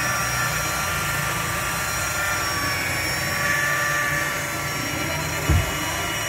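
Steady mechanical drone of a running machine, with one sharp knock about five and a half seconds in.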